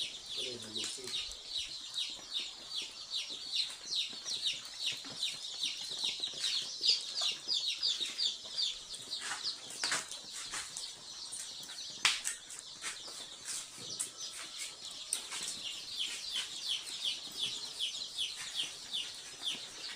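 Flock of young ISA Brown pullets peeping continuously: a dense stream of short, high, falling cheeps, several a second. A few sharp knocks sound near the middle.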